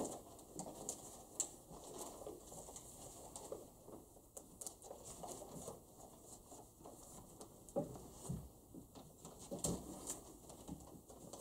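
Paper rustling with scattered small taps and knocks as papers and envelopes are handled at a table, over faint room noise.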